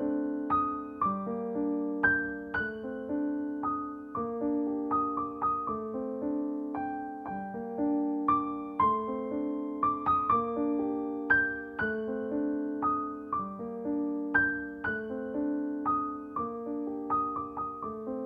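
Background music: a gentle keyboard melody of single struck notes that ring and fade, over held lower notes.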